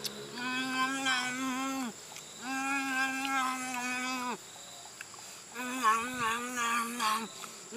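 A man's voice humming drawn-out 'mmm' sounds of enjoyment while eating: about four long held notes at much the same pitch, each sliding off at its end, the last one wavering up and down, with a few small mouth smacks.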